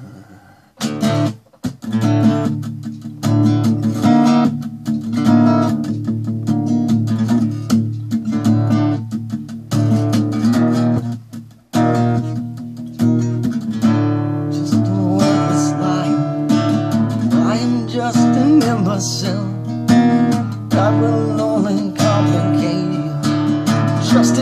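Acoustic guitar strummed in a run of chords, starting about a second in, with a short break about halfway through before the strumming resumes.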